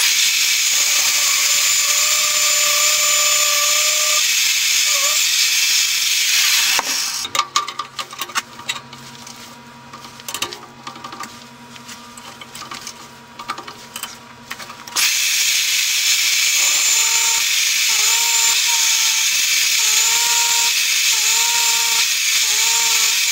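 Drill press driving an annular cutter through the wall of a steel square tube, the cut making a loud steady hiss with a wavering squeal. About seven seconds in the cutting noise drops away to the machine's low hum and scattered clicks, then the loud hiss comes back with a squeal repeating about once a second.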